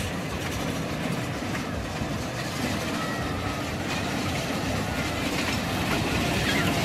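Small electric kiddie train rolling its carriages along a narrow steel track, a steady wheel rumble and clatter that grows louder near the end as the cars come closer.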